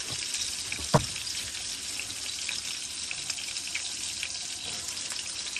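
Grease sizzling in a cast iron chicken fryer: a steady hiss with small scattered pops. A single sharp knock about a second in.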